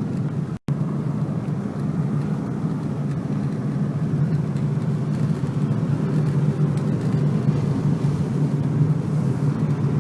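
A car driving along, with a steady low engine and road rumble that briefly cuts out about half a second in.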